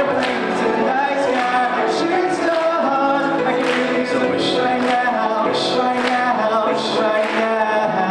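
Several voices singing a song live in a large hall, over sharp beats that recur about every half second to second.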